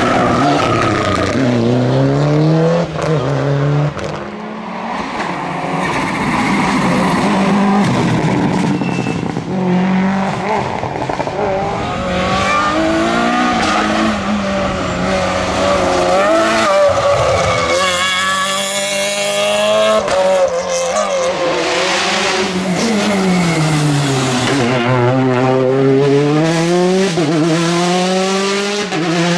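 Rally cars driven flat out one after another on a tarmac stage. Their engines rev up and drop back over and over through gear changes and lifts for corners.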